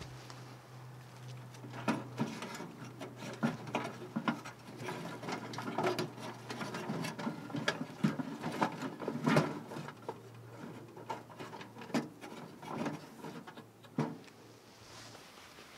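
Dry twigs rustling, crackling and snapping as handfuls of kindling are pushed into the firebox of a small folding titanium wood stove, with irregular clicks and knocks of sticks against the thin metal.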